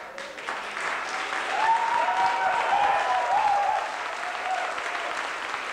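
Audience clapping and cheering just after the last note of the music stops, with long sliding calls from the crowd through the middle.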